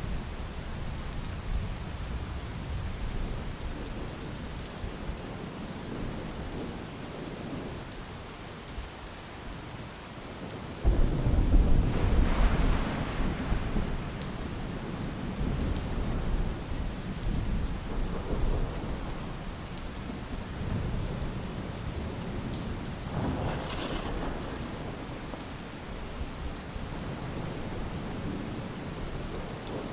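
Steady rain falling, with a clap of thunder rolling in suddenly about a third of the way through and a smaller, fainter rumble of thunder later on.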